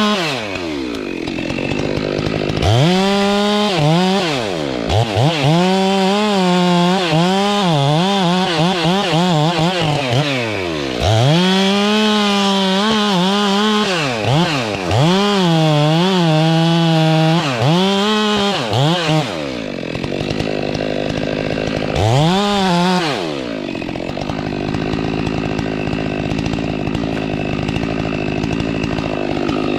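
Stihl MS 462 two-stroke chainsaw cutting wood at full throttle, its pitch sagging and recovering under the load of the cut. It drops off the throttle several times, revs once more, and then idles for the last several seconds.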